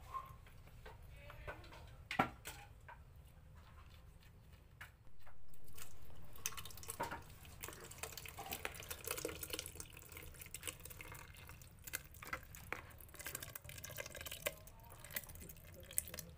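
Metal spoon scooping wet passion fruit pulp and seeds, with small wet squelches and clicks of the spoon against the bowl and the blender jug. A louder burst of noise comes about five seconds in.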